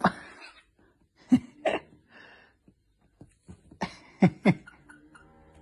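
A person's short, clipped vocal exclamations, three brief clusters of sharp grunt- or cough-like bursts with a falling pitch. A faint steady hum comes in near the end.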